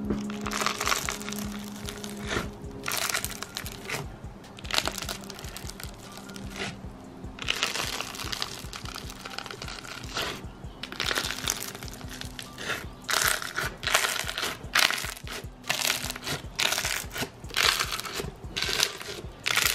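Crunchy slime full of small beads and air bubbles being pressed and squished by hand, giving repeated crackling and crunching pops that come thicker in the second half. Soft background music plays under it.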